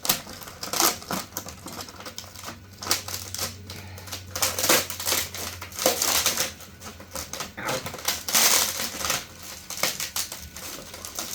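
Irregular sharp clicks, snaps and crackling of hard 3D-printed plastic, the print's support material breaking away as the part is worked free, with a denser crackle about eight seconds in.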